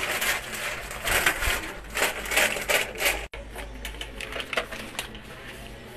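Plastic sachet strips of detergent crinkling and rustling in irregular bursts as they are grabbed and handled. The sound cuts off suddenly about three seconds in, leaving a few faint light ticks.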